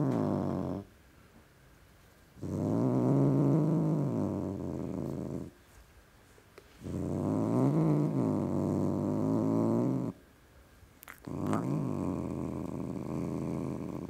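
Tom cat growling hard: long, low growls of about three seconds each that rise and fall in pitch, with short pauses between them. One growl ends in the first second, and three more follow.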